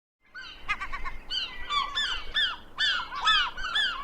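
A flock of birds calling: many quick, arching calls overlapping, starting abruptly out of silence about a third of a second in.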